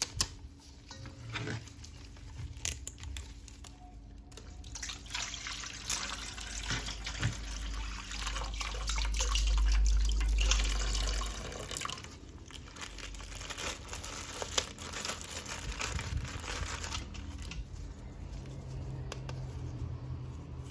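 Water running and splashing as a plastic toy figure is washed by hand, with small clicks and knocks of the plastic. It grows louder for a few seconds midway.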